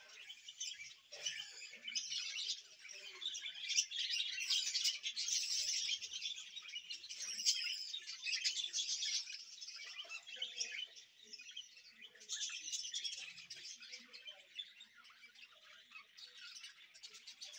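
A flock of budgerigars chattering and chirping continuously, a dense high-pitched twittering that is loudest in the first half and thins out after that.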